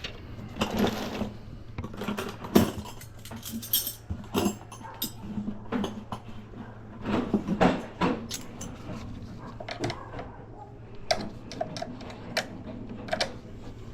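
Hands working on a power wheelchair's battery compartment, taking the battery straps off: irregular clicks, knocks and light metallic rattles, over a steady low hum.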